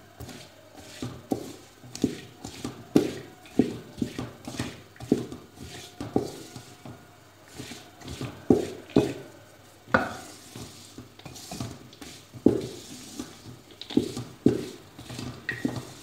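A spatula scraping and knocking against a large metal pot as mixed nuts are stirred through cooking sugar syrup over a gas flame, with a sizzle underneath. The strokes come irregularly, about once or twice a second, with a short lull after about ten seconds. The syrup is being cooked down until it thickens and sticks the nuts together.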